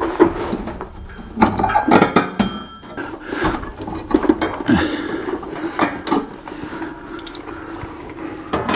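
Irregular metallic clinks, knocks and scrapes as a steel parking-brake return spring is stretched and fished onto its bracket under the car, several of them sharp and loud.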